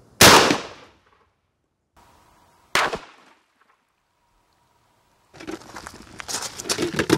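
A 12-gauge pump shotgun fires once with a full-power factory 1 oz slug load: one loud shot about a quarter second in that rings out for about half a second. Near three seconds in there is a second, shorter sharp bang. From about five seconds on, a plastic milk jug crinkles and rustles as it is handled.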